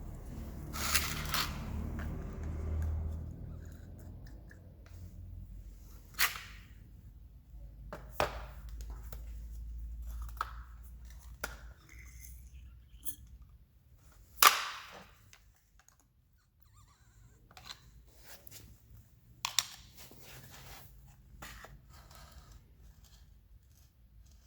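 Scattered sharp clicks and knocks of parts and tools being handled, with a low rumble of handling noise in the first few seconds and again around the middle; the loudest knock comes about two thirds of the way through.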